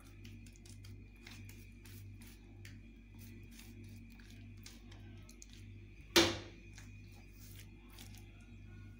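Hands spreading and patting wet gram-flour paste over stacked taro leaves: soft, quick squelchy clicks over a steady hum, with one sharp knock with a short ring about six seconds in.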